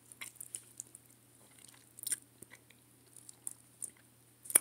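A person chewing a mouthful of chicken and rice close to the microphone: scattered soft mouth clicks and smacks, with one sharper click near the end.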